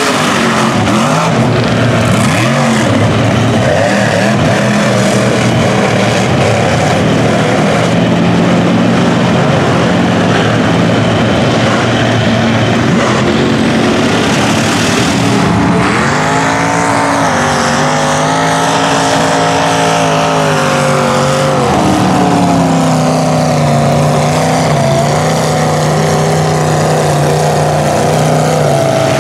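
Mud trucks and a mud buggy running their engines hard through a mud bog. About halfway through, one engine revs up and holds high revs for several seconds before easing off.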